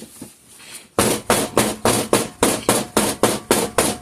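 A rapid run of loud knocks, about four a second, starting about a second in: typical of a filled soap mold being banged on the work surface to settle the batter and release air bubbles.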